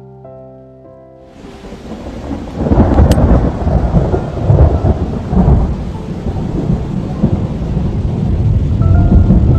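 Piano music gives way after about a second to the loud, steady rush of a flooded river in spate, which builds and then keeps up a heavy rumbling roar. A few piano notes come back faintly near the end.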